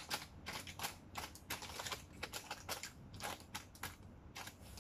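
A spatula pressing sticky granola mixture into a baking pan: an irregular run of faint light clicks and scrapes.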